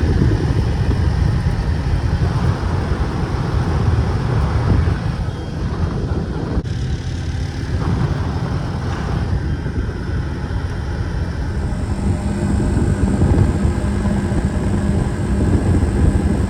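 Four-wheeler (ATV) engine running steadily under way, with a dense low rumble of ride noise.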